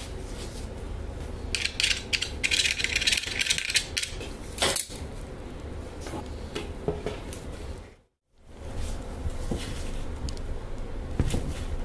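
Hands handling a rusty pendant motor and its flex shaft: scattered metal clicks and clinks, with a dense scratchy rubbing stretch about two seconds in and a sharp click near the middle. The sound breaks off briefly about eight seconds in, then the handling clicks go on.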